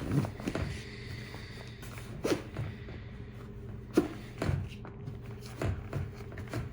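A hiking backpack being handled and packed tight: irregular rustles and soft thuds, with one sharp click about four seconds in, over a steady low hum.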